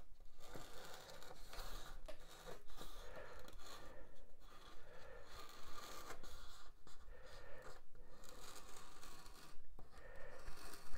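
Pen scratching as it traces around a paper template onto a Styrodur foam board, in short strokes with brief pauses between them.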